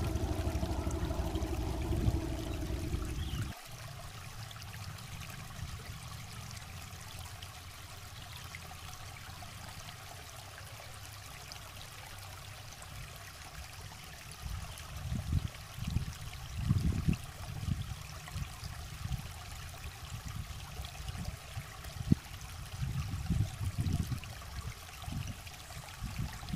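Shallow river flowing over rocks, a steady low rush, with irregular low rumbles from about halfway through. A steady pitched hum runs over it for the first few seconds and cuts off suddenly.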